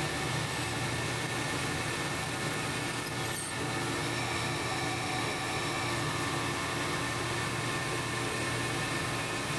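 Metal lathe running with a long twist drill in the tailstock peck-drilling a deep hole through a chrome-plated steel shaft: a steady machine hum with several steady whining tones.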